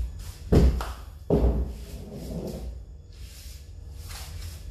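Two clunks about three-quarters of a second apart: a plastic kayak hull knocking against a small folding metal kayak trolley as the kayak is pressed down and tipped on the cart. The second clunk rings on briefly.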